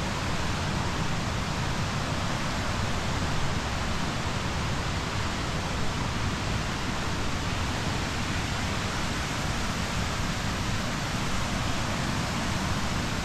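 Steady rush of flowing water, an even hiss that holds without change.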